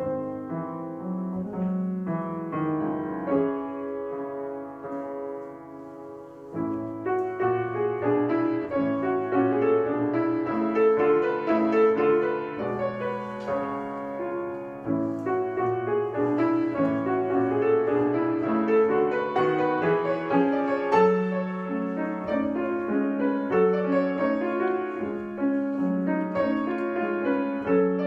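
Piano playing a classical piece: a calmer passage, then from about six and a half seconds in a busier stretch of quick notes over a moving bass.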